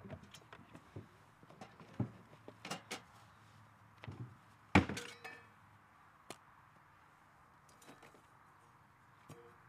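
A wooden box's metal latch unclipped and its hinged lid swung open, then the aluminium cooking pots and gear inside knocked and clinked together as they are handled. A series of sharp knocks and clicks, the loudest about five seconds in, growing quieter after about six and a half seconds.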